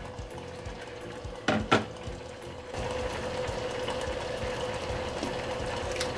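Custard being stirred in a saucepan over the heat, the utensil scraping the pan in a quick rhythm. Two sharp knocks come about a second and a half in, and a steady hum under it gets louder about three seconds in.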